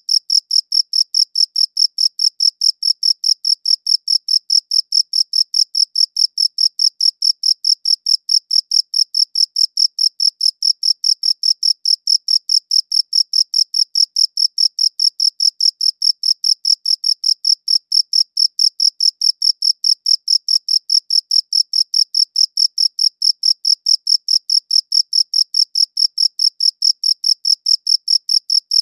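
A cricket chirping in a steady, high-pitched, evenly spaced series of chirps that never changes pace.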